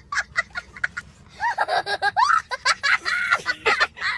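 A laughing sound effect. It opens with quick staccato "ha-ha" pulses, then moves into a longer laugh whose pitch swoops up and down.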